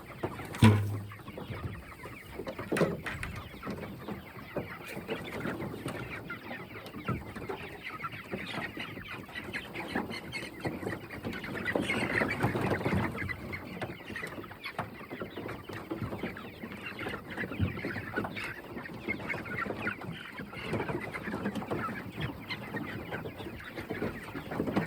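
A flock of Cornish cross meat chickens clucking continuously, with a loud thump about a second in.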